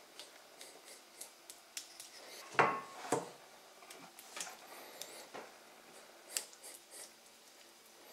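Basting brush dabbing and spreading a thick marinade over a raw goat leg on a china plate: soft wet scrapes and light clicks, with a louder double knock about two and a half seconds in.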